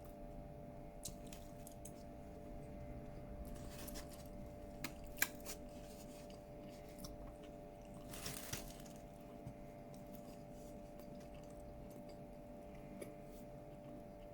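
Quiet eating sounds: scattered light clicks and taps of cutlery on a dish, with one sharper click about five seconds in and a short rustle around eight seconds, over a steady low hum.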